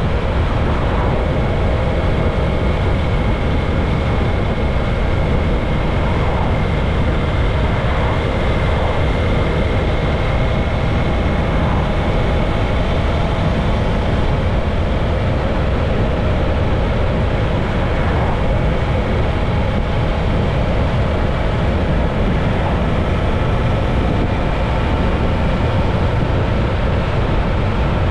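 Motorcycle cruising at a steady road speed: wind rushing over the bike-mounted microphone, with engine and tyre noise underneath and a faint steady whine.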